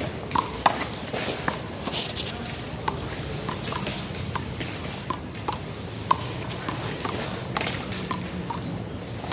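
Small rubber handball being struck by hand and bouncing off the wall and pavement during a one-wall handball rally: a string of sharp, irregular smacks, several with a short ringing ping.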